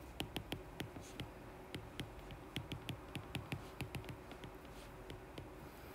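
Stylus tip tapping and ticking on a tablet's glass screen during handwriting: quick, irregular light clicks that thin out after about four seconds.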